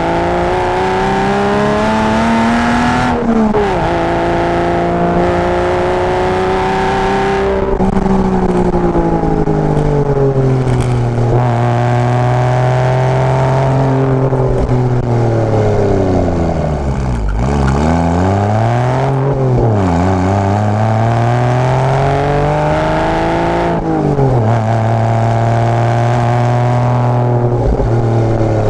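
Porsche Boxster engine through a tuned exhaust, pulling and easing off on a climbing road: the engine note climbs, drops sharply at gear changes, sinks as the car slows and climbs again, several times over.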